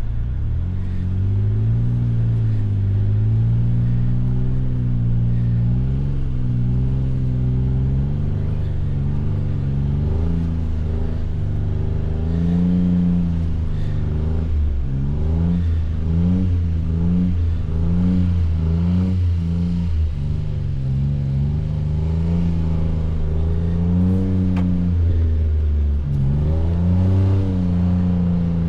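Jeep engine running under load while off-roading in snow, its pitch rising and falling with the throttle, with a run of short surges about once a second roughly halfway through. No knock stands out yet; this is the engine shortly before it began rod knocking.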